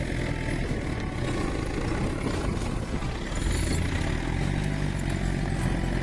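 Engine of a heavy forestry machine running steadily, with a low engine note and some mechanical clatter. It grows a little louder about three and a half seconds in.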